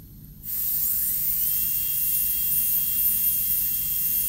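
High-speed dental handpiece with a 330 bur spinning up about half a second in, then running at a steady, high-pitched whine while it cuts the occlusal outline of a typodont molar.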